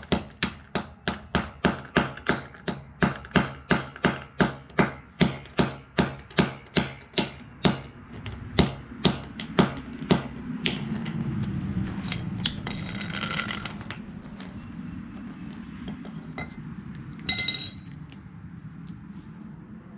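A claw hammer strikes a small piece of a broken Bluetooth speaker on a concrete floor: quick, even blows about three a second for roughly eight seconds, then a few slower blows, stopping about ten seconds in. Near the end comes a single sharp, ringing clink.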